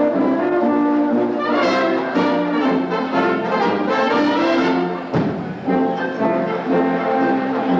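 Danube Swabian brass band (Blasmusik) playing, brass melody over held chords, with a short break in the phrase about five seconds in.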